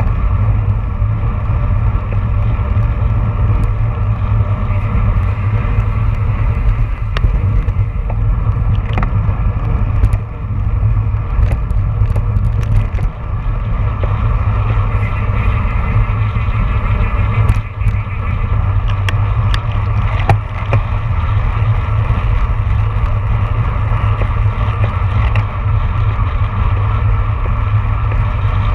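Wind buffeting the microphone of a handlebar-mounted camera on a road bike at race speed, about 25 to 30 mph: a loud, steady low rumble with tyre and road hiss. Scattered sharp clicks and knocks from the bike come through near the middle.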